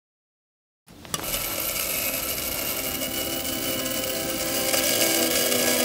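Electric coffee grinder running and grinding beans: a steady mechanical whirr that starts with a click about a second in.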